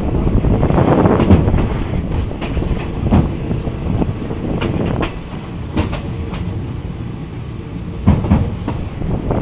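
Passenger train running, heard from an open carriage window: a steady rush of running noise, with the wheels clacking over rail joints at uneven intervals.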